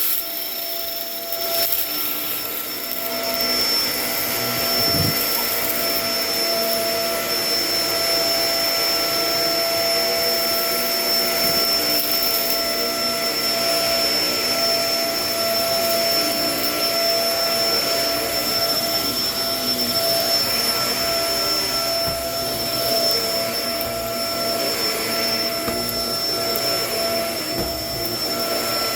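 Kenmore vacuum cleaner running steadily while vacuuming: a constant motor whine over rushing air.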